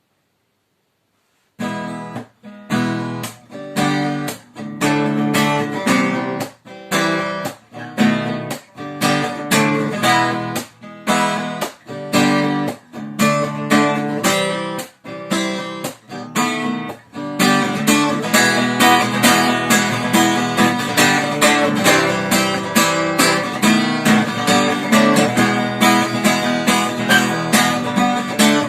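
Acoustic guitar strummed in short, stopped chords with brief gaps between them, starting about a second and a half in; a little over halfway through the strumming turns fuller and continuous.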